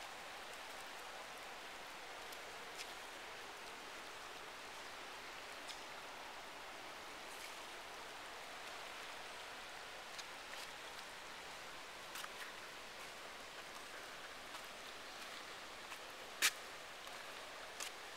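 River water rushing over rocks, a steady hiss, with a few scattered clicks and one sharper tap near the end.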